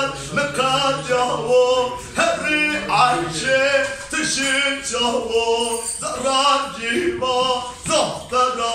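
A man singing a folk song unaccompanied, in phrases of long, wavering held notes with short breaks between them.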